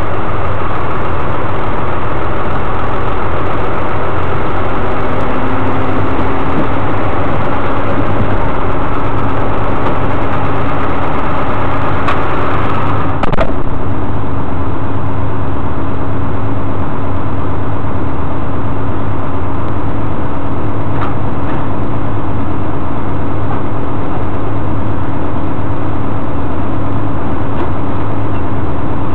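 Tow truck's engine idling steadily. A steady hum joins about five seconds in, and a single knock comes about halfway through.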